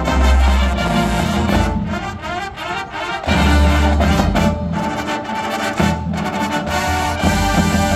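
Marching band playing: brass chords over low bass notes, with drum hits. About two seconds in it drops to a quieter stretch of percussion accents, then the full band comes back in loudly a little past three seconds.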